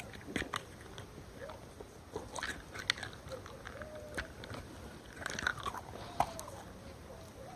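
Watery slime being squeezed and poked by hand: scattered wet clicks and squelches.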